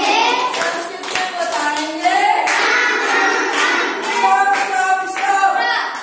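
A group of children singing a chant together while clapping their hands in time, about two claps a second.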